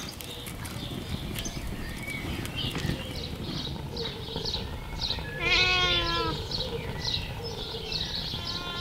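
Domestic ginger tabby cat meowing: one long meow about halfway through, and another starting right at the end.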